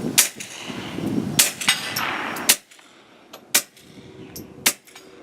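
Suppressed handgun firing five shots about a second apart, each a sharp, muffled pop rather than a full crack, with faint ticks of bullets striking a steel target.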